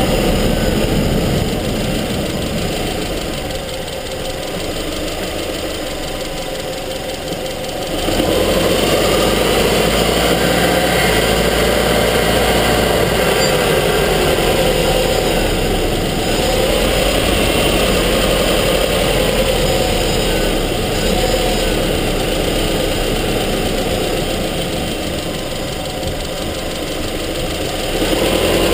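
Subaru Forester XT's turbocharged flat-four engine running, heard from a camera inside the engine bay. It quietens for a few seconds near the start, grows louder about eight seconds in, and its pitch drifts up and down as engine speed changes.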